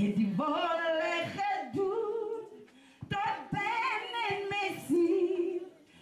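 A woman singing unaccompanied into a microphone, in phrases with long held notes and a short pause about halfway.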